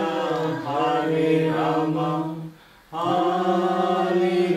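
A group of voices singing a devotional bhajan line in unison, with a short pause for breath about two and a half seconds in before the singing picks up again.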